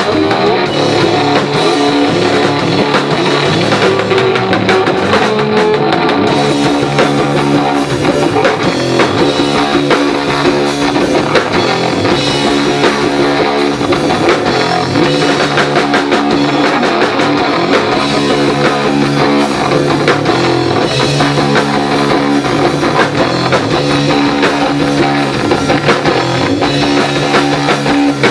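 Rock band playing loud live, with guitar and drums in an instrumental passage and no singing.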